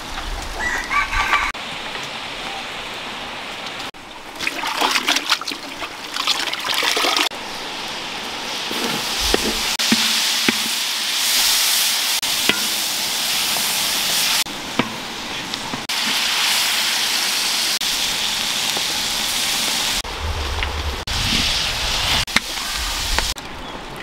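Food sizzling in a large wok while a wooden spatula stirs and scrapes through it: a steady hiss with clicks and scrapes, loudest about halfway through, broken by several sudden cuts.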